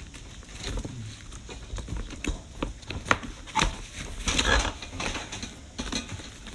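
Handling noise from unpacking a mini portable charcoal grill: scattered clicks and knocks, with a burst of rustling packaging about four seconds in.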